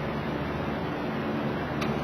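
A steady low mechanical hum, with a light click near the end.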